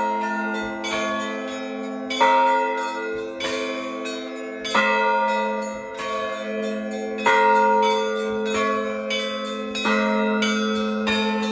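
Orthodox church bells ringing: a deep bell struck four times about two and a half seconds apart, its hum carrying on between strokes, with quicker strokes of smaller bells in between.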